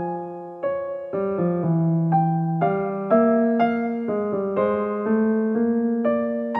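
Background piano music: a slow melody of notes struck about twice a second, each ringing and fading before the next.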